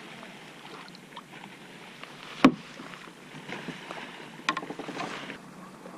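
A single sharp knock against the kayak's plastic hull about two and a half seconds in, then a short run of small clicks and rattles near the end as the rod and line are handled, over a faint steady hiss of wind and water.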